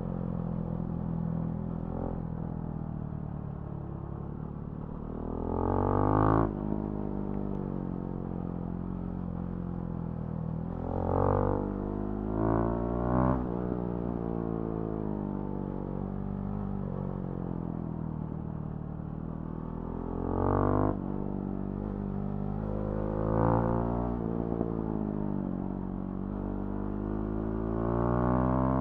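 Husqvarna Svartpilen 701's single-cylinder engine through a Remus NXT aftermarket exhaust, riding along at a steady engine speed. It opens the throttle about six times, each time rising briefly in pitch and loudness. Several of these rises break off sharply, as at a gear change or when the throttle is shut.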